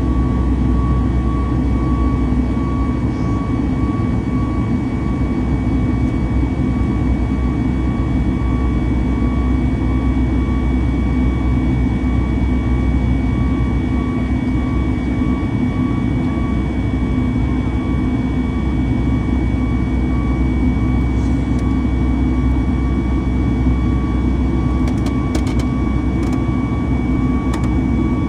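Steady cabin noise of a Boeing 737 MAX 8-200 in flight: a constant rumble of its CFM LEAP-1B turbofans and the passing air, heard from inside the cabin, with a few steady high tones over it.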